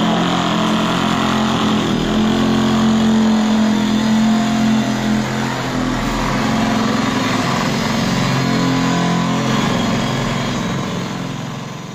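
Handheld electric tile vibrator running with a steady hum while pressed against a large wall tile, settling the tile into its cement adhesive bed. The sound fades out near the end.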